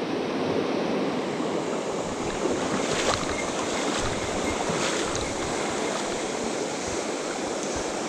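Mountain stream rushing steadily over a shallow rocky riffle, running high after heavy rain.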